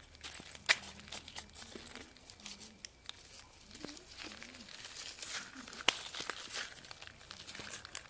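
Paper packets crinkling and rustling as they are unfolded in the hands, with two sharp snaps, about a second in and about six seconds in.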